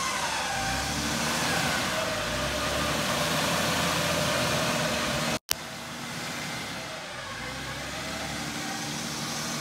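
Electric recovery winch on a 1996 Lexus LX450 reeling in synthetic line under load, a whine that falls in pitch, over the truck's 4.5-litre inline-six engine running. The sound cuts out completely for a moment about halfway, ending in a click.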